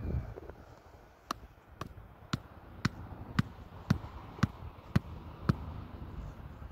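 Nine sharp knocks at a steady pace of about two a second, each a single hard strike.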